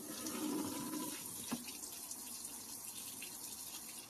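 Water running into the tub of a semi-automatic twin-tub washing machine as it is filled for a test, a steady rushing hiss. A single knock sounds about a second and a half in.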